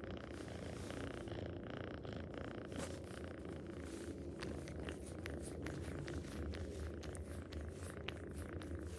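Domestic cat purring steadily, a continuous low rumble, with scattered light clicks over it, mostly in the second half.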